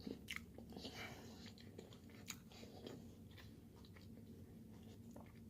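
Faint close-up chewing: soft wet mouth clicks and smacks at irregular moments.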